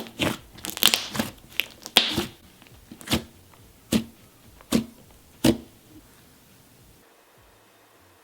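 Thick Model Magic clay butter slime with foam beads being squished and pressed by hand, giving sharp wet pops and crackles. They come in a quick run at first, then as four separate pops about a second apart.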